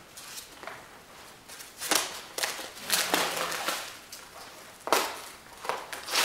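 Bubble wrap and plastic packaging crinkling and rustling as it is handled and pulled open, in several loud bursts from about two seconds in.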